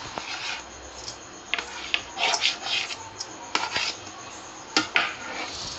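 A knife cutting and scraping through steamed alu vadi rolls on a board, in several short rasping strokes.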